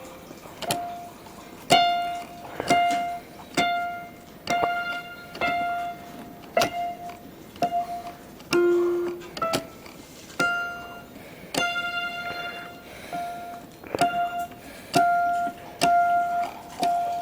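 Casio LK-280 keyboard playing its piano voice: single notes picked out one at a time, mostly the same note repeated about once a second, with one lower note about halfway through.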